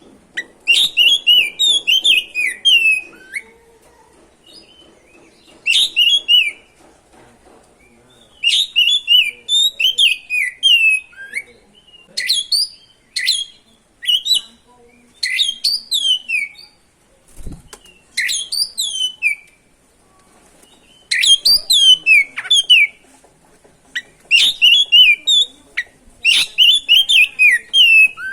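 Oriental magpie-robin (kacer) in full song: repeated phrases of quick, high, downward-sliding whistled notes, each phrase a second or two long with short pauses between.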